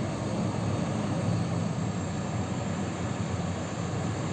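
JCB 4DX backhoe loader's diesel engine running steadily as the machine drives slowly forward, a low even drone.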